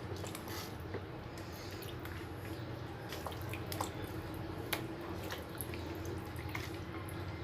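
Water dripping and lightly splashing as a raw duck is handled in a soaking bath, with scattered small clicks and a steady low hum underneath.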